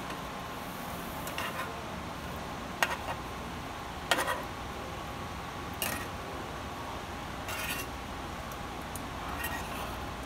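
Metal kitchen tongs clinking against a ridged grill pan and a plate as grilled mango slices are lifted off the pan: a few sharp, separate clinks spread through a quiet stretch.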